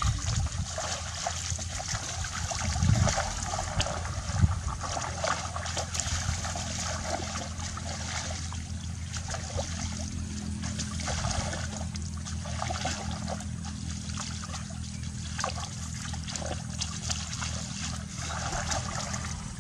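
Shallow water trickling and splashing as it is disturbed, over a steady low hum.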